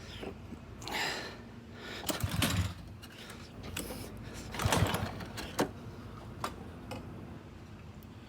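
Irregular clicks, rattles and scraping from hands working on a gas pressure washer's small engine that is not running, with a few louder scrapes and sharp clicks.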